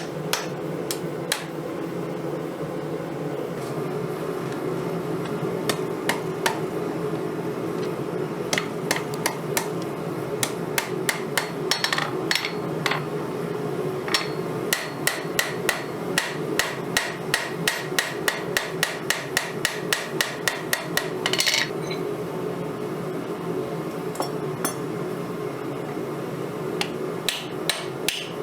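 Hand hammer striking steel on an anvil while a knife blade is forged from an old file: runs of quick ringing blows with short pauses between them, over a steady low hum.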